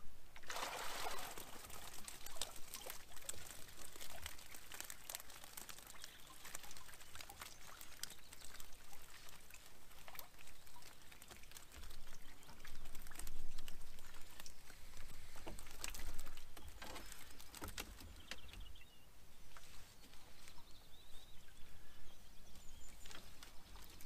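Water pouring and trickling out of a mesh keepnet as it is hauled up out of the river, heaviest in the first second, with small clicks and rustles of the net being handled throughout.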